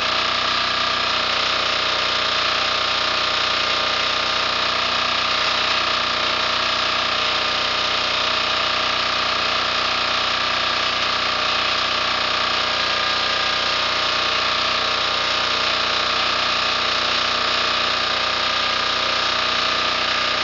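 Air-cooled single-cylinder KOOP diesel engine running steadily on a log splitter, driving its two-stage hydraulic pump, with wood cracking as logs are split on the beam.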